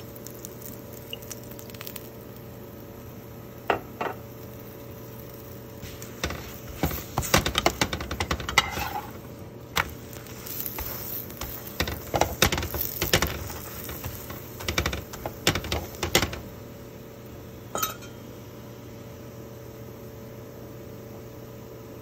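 Metal spatula scraping and tapping against a nonstick frying pan while pressing and turning a paratha, in irregular bursts of clatter mostly through the middle, over a steady low hum.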